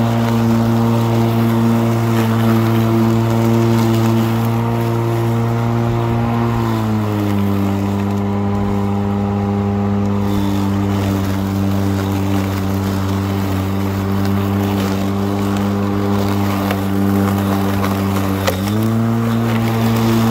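Stihl RMA 235 battery lawn mower's electric motor and blade running with a steady hum while cutting grass. About a third of the way in the pitch drops as the motor slows under the load of the grass, and it climbs back up near the end.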